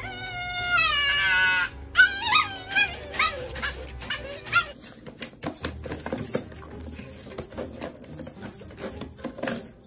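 A husky-type puppy gives one long howl falling in pitch, then a run of short yips and whines. After that come light, rapid clicks and taps from a pug pawing at a round plastic cat track toy.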